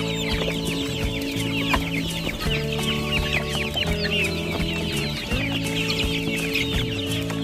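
A flock of young chickens peeping and clucking, a constant run of short, high, falling chirps. Under it, background music with low held chords.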